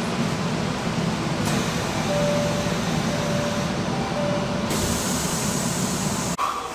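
Steady rumble and hiss inside a Tokyo Metro subway car, with a few faint short tones in the middle. It cuts off suddenly near the end.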